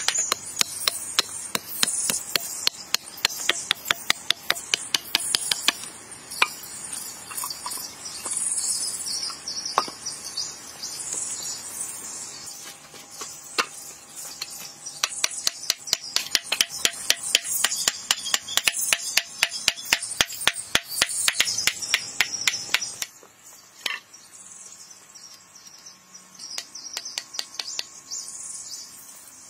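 Insects calling in a steady high chorus, over a fast run of sharp clicks or taps, several a second, that stops about 23 seconds in, leaving the insects fainter.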